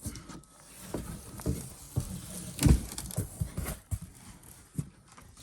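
Irregular light knocks, clicks and rustles of plastic parts and cardboard packaging being handled, with one louder knock about two and a half seconds in.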